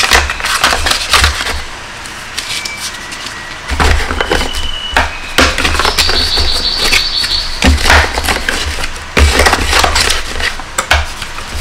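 Paper booklets and cardboard box flaps rustling, scraping and knocking as the papers are pushed back into a cardboard box, in irregular bursts.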